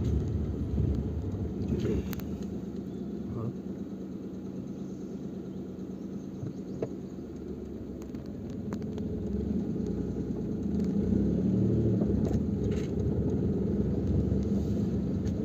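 Vehicle driving slowly over a rough, bumpy dirt track: a steady low rumble of engine and road noise that grows louder about two-thirds of the way through, with a few faint knocks.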